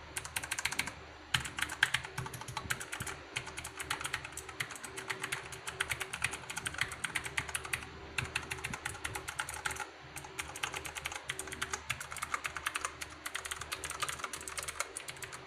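Fast typing on a Redragon Rudra mechanical keyboard with clicky blue switches, each keystroke a sharp click, in quick runs with brief pauses.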